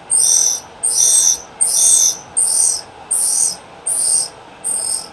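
K.O. Lee tool and cutter grinder relief grinding a drill bit on a Hybco cam relieving fixture: the wheel bites the steel in regular high-pitched bursts about every three-quarters of a second, over the steady run of the grinder's motor.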